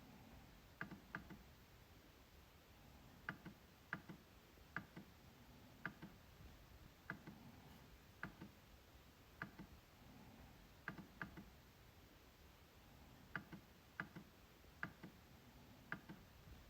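MacBook trackpad being clicked: short, sharp clicks at an uneven pace, roughly one a second, several of them in quick pairs like double-clicks.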